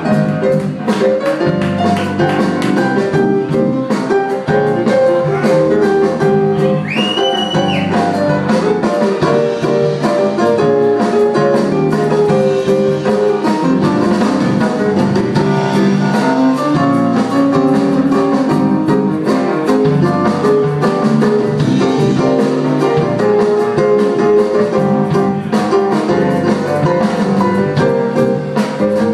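Live jazz band playing, with saxophones, electric guitar and a Yamaha MO6 keyboard over a drum kit. A brief high held note stands out about seven seconds in.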